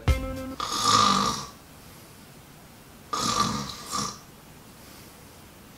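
A man snoring: three snores about two and a half seconds apart, with quiet between them. A short steady tone sounds just before the first snore.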